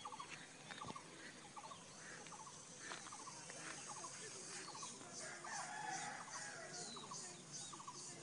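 Faint chickens: hens clucking in short repeated calls and a rooster crowing about five and a half seconds in. Over the second half a small bird's high chirps repeat about three times a second.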